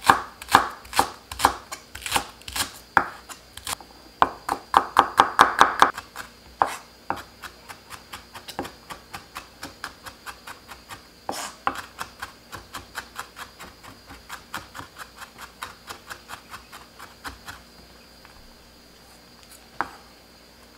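Chef's knife chopping on a wooden cutting board: a Korean leek being sliced, then garlic being minced in quick, even strokes that thin out and stop near the end.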